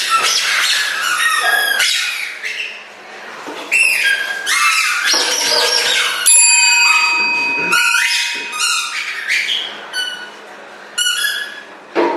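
Squeaker toys tied to the players' feet, squeaking with each step in a rapid run of short squeaks that bend up and down in pitch. A single steady tone is held for about two seconds in the middle.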